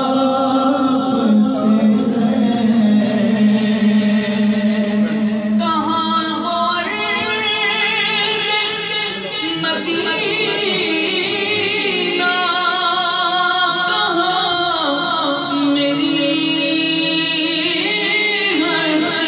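A man singing an Urdu naat unaccompanied into a microphone, with long held notes and ornamented runs.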